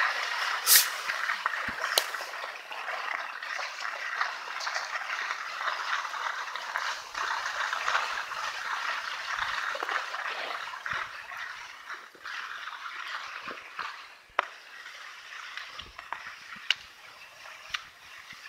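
Skis sliding and scraping over packed snow, a steady hiss with a few sharp clicks, the loudest about a second in.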